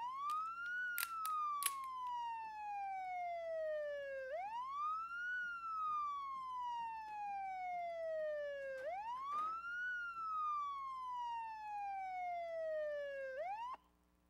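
A siren wailing: the tone sweeps quickly up, then falls slowly back, about every four and a half seconds, for three full cycles. Two sharp clicks come about a second in, and the siren cuts off suddenly partway through a fourth rise near the end.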